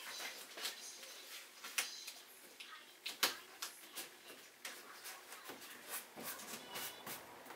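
Scattered light clicks and knocks of objects being handled, the sharpest a little over three seconds in.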